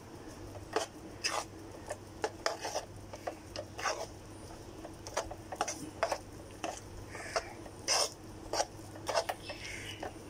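A flat metal spatula scraping and tapping against a metal kadhai while stirring a thick, sticky mixture of jaggery syrup and ground roasted chana and peanuts. The scrapes and taps come irregularly, about one or two a second.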